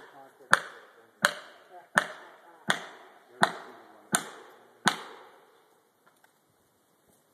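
An axe striking heavy, evenly paced blows at a felled tree, about seven of them, roughly one every 0.7 seconds, each with a short ringing tail; the blows stop about five seconds in.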